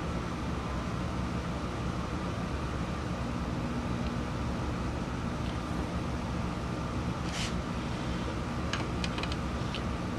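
Steady low hum of a running dehumidifier. A short scrape comes about seven seconds in, then a few light clicks near the end as the lathe's mounting bolt is being tightened.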